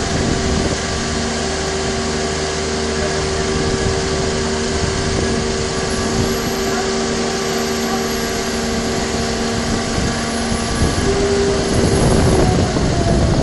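Motor yacht's inboard engines running steadily near idle, a low drone with several steady tones over it. Near the end the sound grows louder and one tone slides down in pitch.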